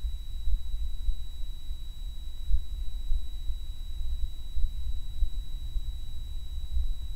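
A low-frequency hum recorded through a microphone and a microbarograph: a deep, uneven rumble that flickers in level, with loudness peaks every couple of seconds. Over it runs a steady high-pitched tone, with a faint steady tone near 1 kHz, which the recordist attributes to the microbarograph's 1 kHz sampling.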